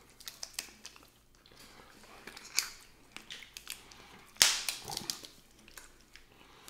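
Snow crab leg shells cracking and snapping as they are broken open by hand, heard as a scatter of sharp cracks. A strong one comes about two and a half seconds in and the loudest about four and a half seconds in.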